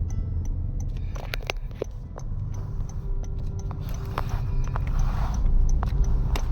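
Outdoor ambience: a steady low rumble with scattered clicks and knocks.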